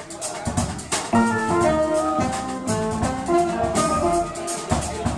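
Jazz quartet of saxophone, guitar, double bass and drums playing live. Cymbal and drum strokes keep time throughout, and from about a second in a fast melodic run of quick, separate notes comes to the front.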